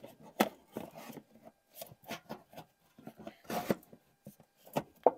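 Irregular clicks, knocks and rustling of hands and small parts being handled around the carburettor of an old Holden ute's engine bay, with a sharper knock about half a second in and another near the end.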